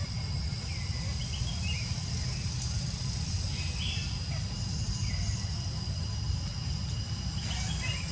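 Forest ambience: a steady high-pitched insect drone with a few short high chirps here and there, over a constant low rumble.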